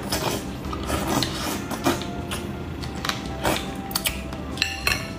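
Close-miked eating of beef bone marrow: wet sucking and smacking at a split bone, with a metal spoon scraping and clicking against it in irregular sharp clicks, a few of them louder.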